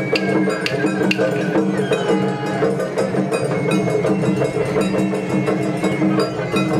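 Japanese festival hayashi music played on a carved float: quick rhythmic strokes of drums and a small clanging metal gong, over the din of a large crowd's voices.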